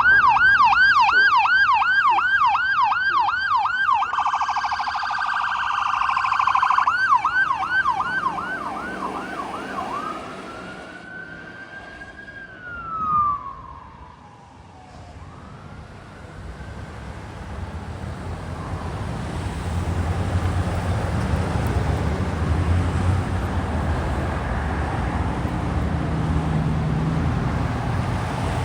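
Electronic emergency-vehicle siren on an ambulance, sounding a fast yelp of about three sweeps a second, with a denser stretch for a few seconds before the yelp resumes. About ten seconds in it turns to one slow wail that rises and falls as it winds down. The rest is a low, steady rumble of vehicle engine and road noise.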